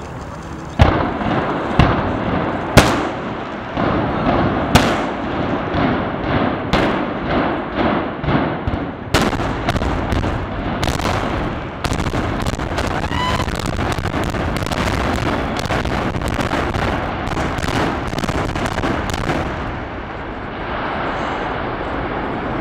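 Explosive demolition charges going off in a power plant implosion. A series of loud, sharp bangs, the loudest about three seconds in, quickens into a dense crackle of detonations from about twelve seconds and stops a few seconds before the end.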